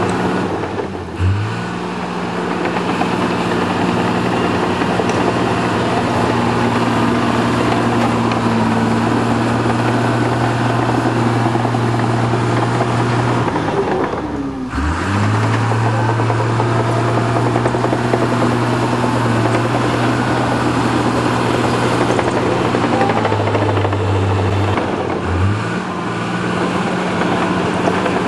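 Diesel engine of a hydraulic excavator running steadily at working revs. Its note sags and climbs back three times: about a second in, halfway through, and near the end.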